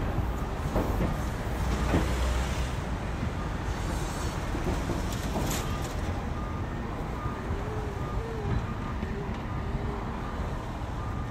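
Busy city street traffic: a steady rumble of passing vehicles, with faint short beeps repeating in the second half.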